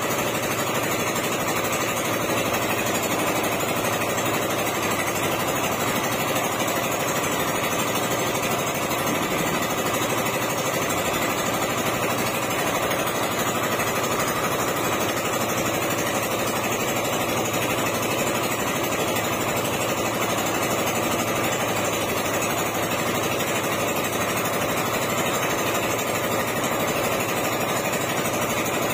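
A small engine running steadily at an unchanging speed.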